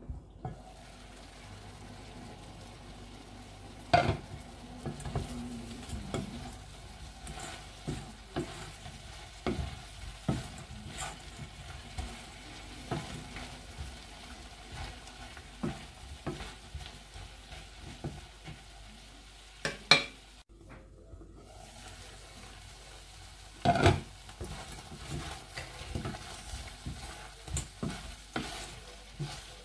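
Shrimp and okra sizzling steadily in a frying pan while a wooden spatula stirs and scrapes the food, knocking against the pan, with several louder knocks along the way.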